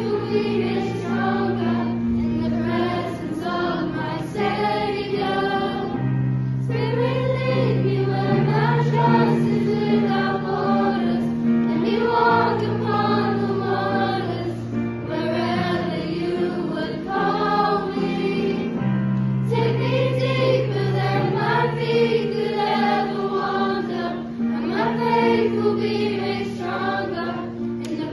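Background music: a choir singing a slow melody over held low notes that change every few seconds.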